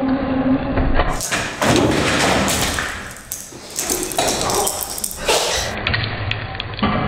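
Scuffling and thuds of people crawling on all fours across a tiled floor, with knocks and clicks of scattered pencils. Voices are mixed in.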